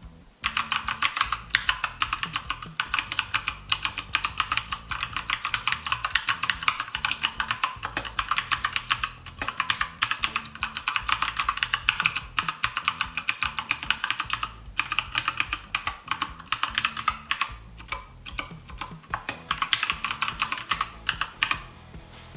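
Fast typing on a Keychron K2 (V2) mechanical keyboard with Gateron Brown tactile switches, a rapid stream of key clacks. It starts about half a second in, has a couple of brief pauses, and stops shortly before the end.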